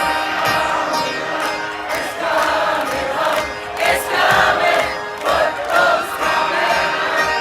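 Live band music recorded from within the audience, with many voices swelling between about two and six seconds in.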